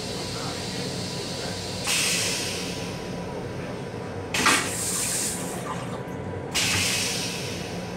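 Stainless-steel railcar toilet flushing: three hissing sprays of rinse water about two seconds apart, each starting suddenly and fading. The railcar's steady hum runs underneath.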